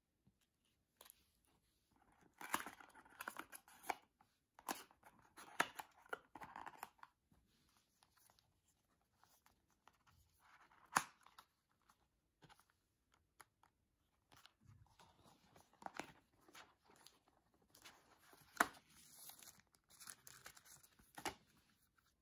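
Paper and cardboard packaging being handled: a paper insert folder opened and cards slid out, rustling and scraping in irregular bursts with a few sharp taps.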